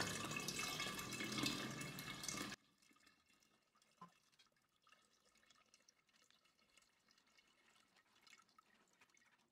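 Lemon juice pouring through a plastic sieve into a large glass jar, a steady splashing trickle. About two and a half seconds in it cuts off abruptly, leaving near silence with a few faint ticks.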